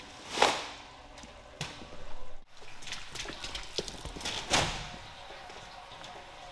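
Heavy wet rug being handled: a loud swish about half a second in as it is flipped over on the floor, and another a little past the middle as it is swung and dropped onto a slatted machine bed, with small knocks and steps in between.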